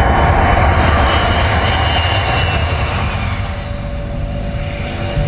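Jet airliner engine noise, loud and steady, with a high whine that falls in pitch over the first few seconds as the plane passes. The hiss eases off toward the end.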